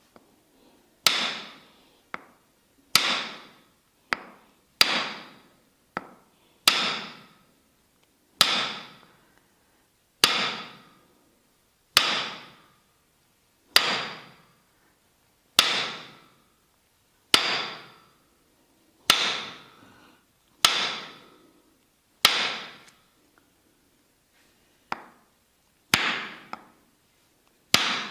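Tok sen massage: a wooden mallet striking a wooden stick held against the body, in slow single blows about every two seconds. Each blow is a sharp knock that rings out briefly, with a few lighter taps in between.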